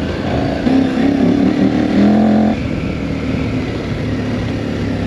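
KTM 1190 Adventure's V-twin engine riding on a dirt trail, its note climbing under throttle for about two seconds and then dropping off abruptly before settling into a steady run.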